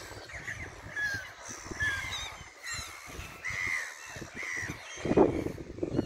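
A flock of gulls calling: many short, overlapping high calls, with a louder, lower burst of sound about five seconds in.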